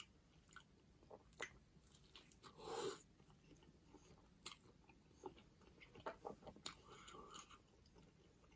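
Faint close-up chewing of a McDonald's burger: scattered soft mouth clicks, with a slightly fuller stretch about three seconds in and a short run of clicks around six to seven seconds.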